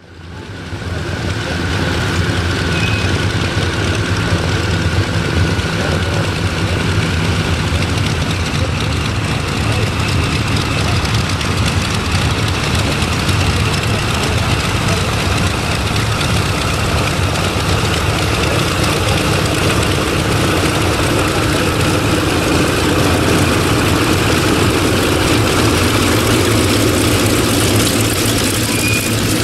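Canadair CL-215 water bomber's twin radial piston engines running as it taxis past: a steady propeller drone that grows a little louder in the last part.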